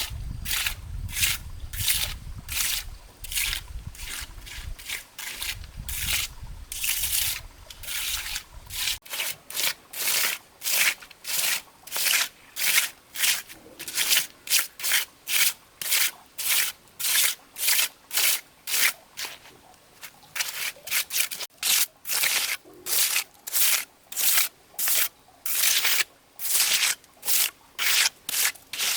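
Rhythmic rasping strokes, about two a second, like rubbing or scraping by hand, going on steadily. A low rumble underneath stops abruptly about nine seconds in.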